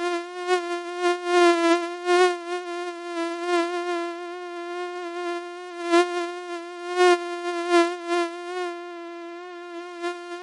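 Mosquito wing whine: one steady high buzz that wavers slightly in pitch and swells louder and fades again several times, as if flying close past the ear.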